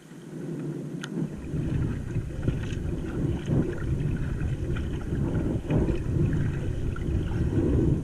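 Wind rumbling on the microphone, rising about a second in and gusting up and down, with a few faint clicks.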